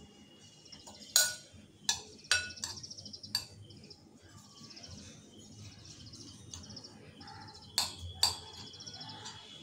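A metal spoon stirring grated paneer filling in a cut-glass bowl, clinking against the glass about six times, with birds chirping in the background.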